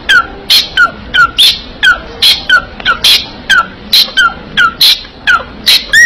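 Small pet parrots calling in a fast, even run of shrill calls, three or four a second. Each call is a harsh burst followed by a short falling chirp.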